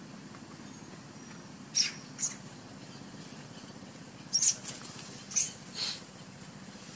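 Baby macaque giving short, high-pitched squeaks: two about two seconds in, then three more between four and six seconds in.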